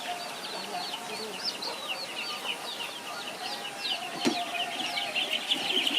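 Young poultry chicks peeping: a fast run of short, high cheeps, several a second, with one sharp click about four seconds in.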